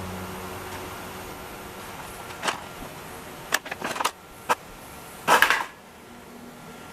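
Hand work on a bicycle's front brake cable: a sharp click, then a quick run of clicks and knocks, and a louder short scraping rattle, over a steady low hum.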